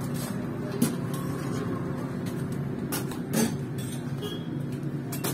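Steady low hum of road traffic, with a few short knocks: a sharp one about a second in and another around three and a half seconds in.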